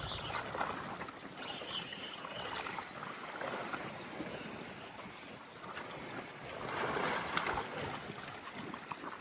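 Sea water washing and trickling among the tetrapod blocks, swelling and easing with the waves, one swell louder near the end.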